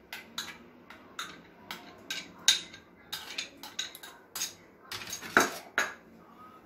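A spoon tapping and scraping against glass bowls: a string of irregular clinks, the loudest about five seconds in, as whisked curd is scraped out of a small glass bowl into a glass mixing bowl of semolina and flour.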